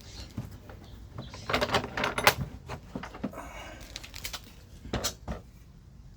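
Clicks, clinks and clatter of a Swiss Army petrol field stove kit's parts and case being handled and opened, with a denser rattle about two seconds in and a short scrape soon after.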